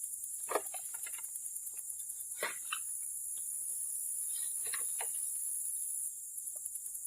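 Steady high-pitched chirring of an outdoor insect chorus, with a few brief faint scrapes and clicks.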